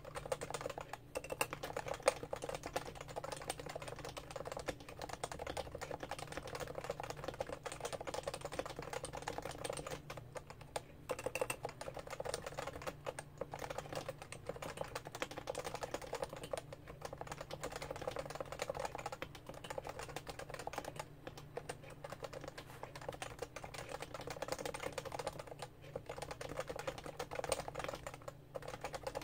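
Steady typing on a Realforce R2 keyboard with Topre electrostatic-capacitive switches, a dense run of soft keystroke clicks broken by a few brief pauses.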